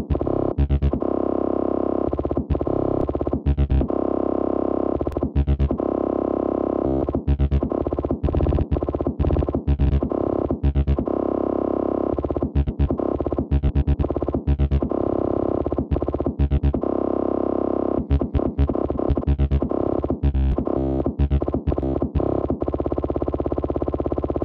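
Electronic music: a sustained, distorted synthesizer chord repeatedly chopped by quick stuttering cuts.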